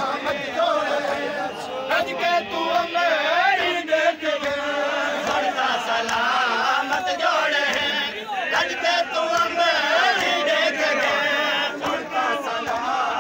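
A crowd of men chanting a noha, a Shia lament, together, with scattered sharp slaps of hands striking chests in matam.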